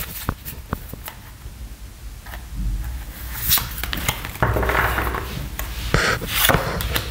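Tarot cards being shuffled and handled: cards rubbing and sliding against each other in several short rustling bursts, with a few light clicks and dull bumps.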